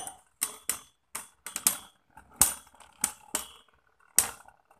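Spinning Beyblade tops clacking against each other and the plastic stadium wall in sharp hits at uneven intervals.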